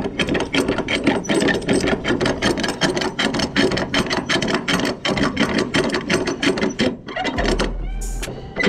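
Hand-cranked strap roller clicking rapidly as a flatbed cargo strap is wound tight onto it, with a short pause near the end.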